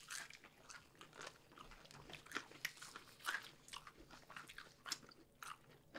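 Faint chewing and biting of hot wings: irregular soft crunches and wet mouth clicks picked up close on the microphones.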